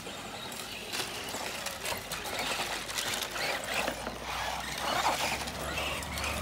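Electric Tamiya radio-controlled cars driving on a dirt track: motors running and tyres scrabbling over the soil, with scattered sharp clicks and knocks.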